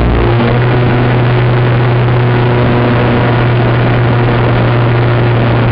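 Mini Telemaster RC airplane's motor and propeller running loud and steady, heard from the camera riding on the plane, with a constant rushing noise of air over it.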